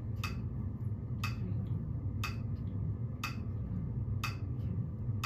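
Metronome clicking steadily at about one click a second, roughly 60 beats per minute.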